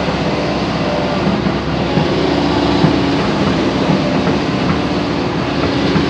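Sany hydraulic excavator running as it works its boom and bucket: a steady, loud diesel and hydraulic drone with a few short knocks.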